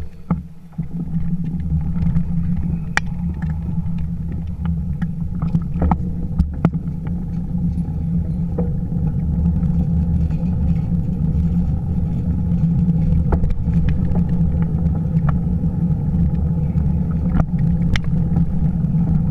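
Steady low rumble of wind and road vibration on a camera mounted on a moving bicycle, with scattered sharp clicks and knocks from bumps in the path.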